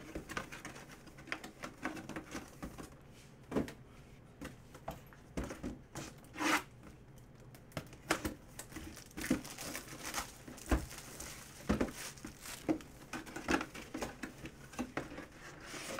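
A cardboard collectibles box and its plastic wrapping being handled and opened: crinkling plastic, rustling, and scattered taps and knocks on the cardboard.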